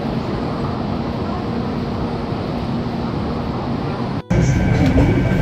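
Underground station platform ambience beside a standing Taiwan High Speed Rail 700T train: a steady low hum. About four seconds in it cuts out briefly and returns louder, with a steady high whine.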